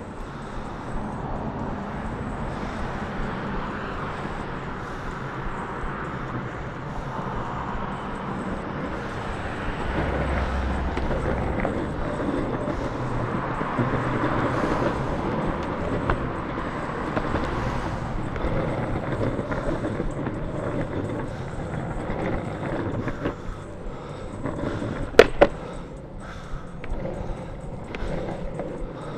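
Longboard wheels rolling over pavement, a steady rolling noise that grows louder in the middle, with one sharp click near the end.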